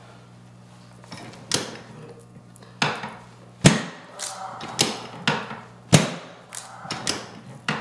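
Chiropractic drop table's pelvic section snapping down again and again under the chiropractor's thrusts: a run of about ten sharp knocks, some much louder than others, spaced about half a second to a second apart and starting about a second and a half in. These are sacral drop adjustments meant to rotate a slightly rotated sacrum back to midline.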